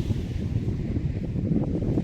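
Wind buffeting the microphone over the steady rush of sea waves.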